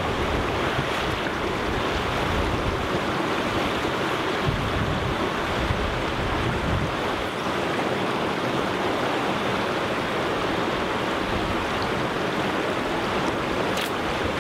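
Small stream's water rushing steadily over stones, with low wind rumbles on the microphone now and then in the first half.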